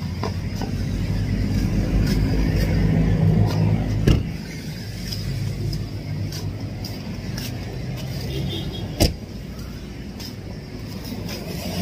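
A car engine running steadily, a little louder during the first four seconds, with a sharp click about four seconds in and a louder one about nine seconds in.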